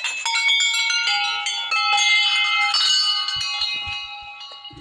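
A row of small brass temple bells hanging from a rail is rung by hand. Several are struck one after another, and their bright, overlapping tones ring together, then fade away toward the end.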